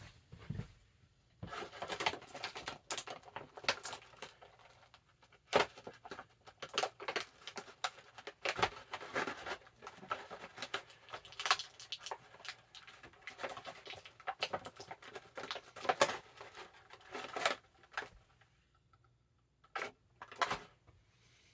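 Plastic action-figure packaging and a blister tray being handled, crinkling and clicking in a dense run of rustles and snaps, with a pause about eighteen seconds in and a couple more clicks near the end.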